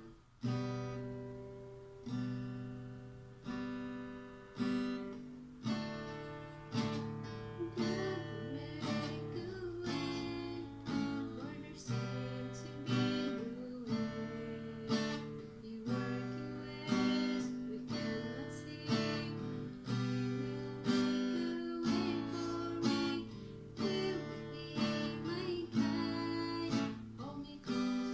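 Acoustic guitar strummed in chords. The strokes come about once a second at first, then settle into a busier strumming pattern from about six seconds in.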